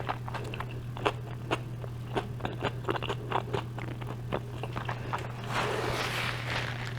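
Close-up chewing of a mouthful of gyro, heard as many small wet mouth clicks at an uneven pace. Near the end a louder, hissing rustle comes in. A steady low hum runs underneath.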